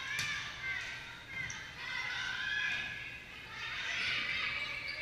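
Players and spectators shouting and calling over one another in a gym during a volleyball rally, with a sharp smack of the ball just after the start and another about a second and a half in.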